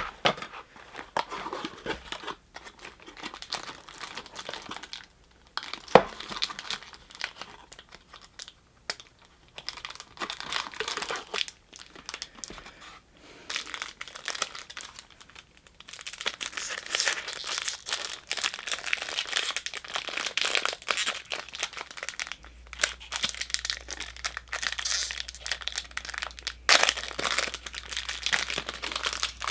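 Foil wrapper of a Pokémon booster pack crinkling and tearing as it is opened and the cards are handled, with two sharp clicks, one about six seconds in and one near the end.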